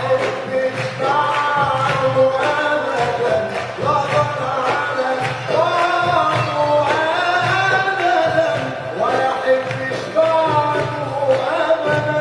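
Live Egyptian Arabic song performance: ensemble music with gliding, ornamented melody lines over a steady beat.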